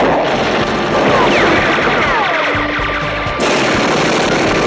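Rapid rifle gunfire fired from a moving jeep, mixed with an action-music score, with a run of falling whines about a second in.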